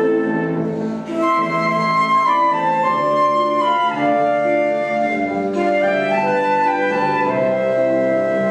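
Instrumental duet music: a sustained melody line moving over held chords, with the notes changing every second or so.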